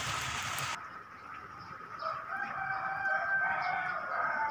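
Steady heavy rain that cuts off suddenly under a second in. About two seconds in, a rooster starts crowing, one long call lasting over two seconds.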